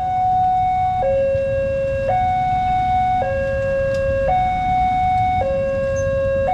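Railway level-crossing warning alarm sounding a two-tone hi-lo signal, switching pitch about once a second, the warning that a train is approaching. A low traffic rumble runs underneath.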